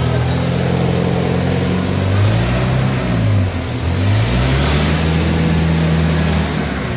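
An engine running steadily. Its pitch sags briefly about three and a half seconds in, then climbs back up.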